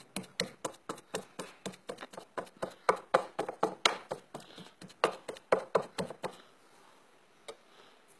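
Pestle pounding lumps of animal fat in a mortar, beating it together with olive oil into oar grease: quick knocks, about three to four a second, which stop about six seconds in.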